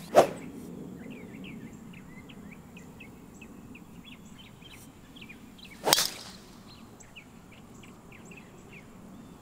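Driver clubhead striking a golf ball off the tee: one sharp crack about six seconds in. Small birds chirp over a quiet outdoor background, and there is a short click at the very start.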